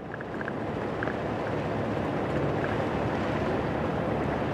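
A vehicle driving on a dirt road: steady engine and tyre rumble with a rush of wind, fading in at the start.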